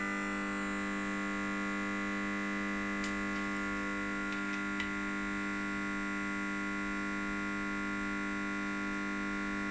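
A steady, unchanging hum with several tones, with a few faint clicks of a tool being handled at the engine about three to five seconds in.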